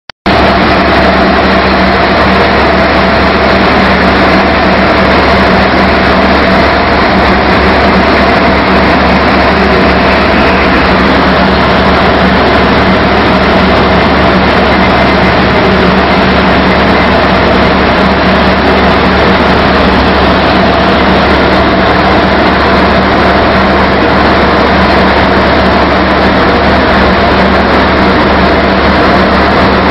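Sand-recycling dewatering screen running steadily and loudly, its twin vibration motors shaking the polyurethane screen deck under wet sand slurry, with a constant low hum under a dense mechanical and splashing noise.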